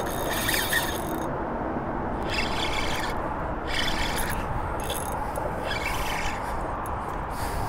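Fishing reel drag buzzing in repeated short spurts as a large fish pulls line off against it.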